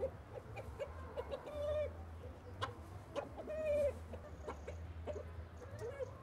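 A flock of domestic chickens clucking softly: short scattered calls, about two a second.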